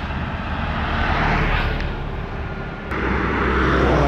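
Vehicles passing close by on a road: a steady low rumble with two rushes of engine and tyre noise that swell and fade, about a second in and again about three seconds in, with a sharp click just before the second.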